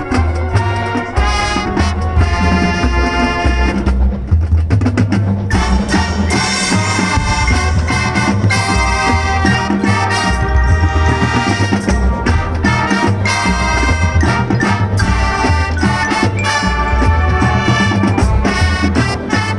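High school marching band playing: brass ensemble over a pulsing bass-drum and percussion beat, thinning briefly about four seconds in before the full band comes back.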